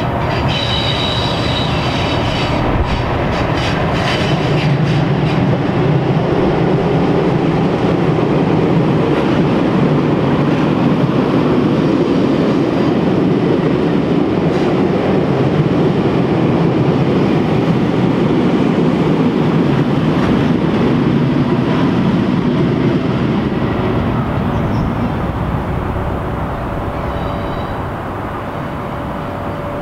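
A pair of Class 37 diesel locomotives, each with an English Electric V12 engine, working the test train over a bridge: a heavy engine growl with wheels clicking over rail joints, building as the train comes past and easing off near the end.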